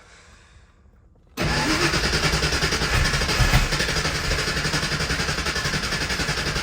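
Ford Mustang fox-body engine starting up, cutting in abruptly about a second and a half in, then running loud and steady with a fast, even pulse.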